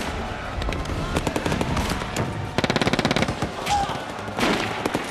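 Battle gunfire: scattered single shots, then a rapid burst of machine-gun fire about two and a half seconds in, and another heavy burst of noise near the end.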